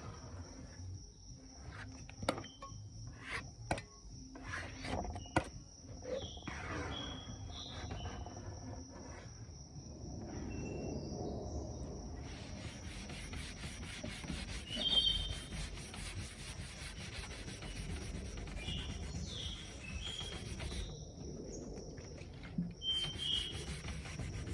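Rubbing on a wooden surface: a few sharp knocks and irregular strokes at first, then steadier rubbing from about ten seconds in.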